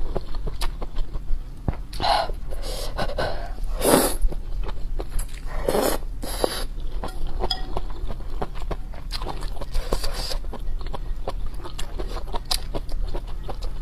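A person slurping noodles and meat from spicy soup, several short slurps, about two seconds apart, with wet chewing and small mouth clicks in between.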